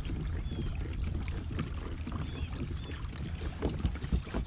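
Pedal-driven kayak under way: water washing along the plastic hull, with a steady low wind rumble on the microphone and a few faint ticks.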